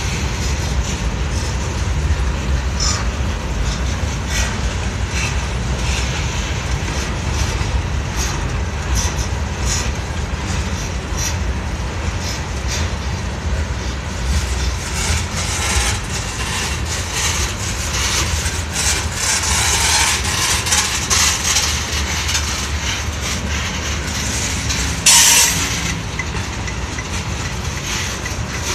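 Freight cars of a Norfolk Southern train rolling past: a steady low rumble with the wheels clicking over rail joints and faint wheel squeal. Near the end, a short, loud screech stands out above the rest.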